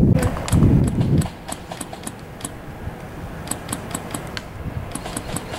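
Distant airsoft gunfire: an uneven patter of sharp clicking shots, several a second, coming in short clusters. A low rumble on the microphone covers the first second.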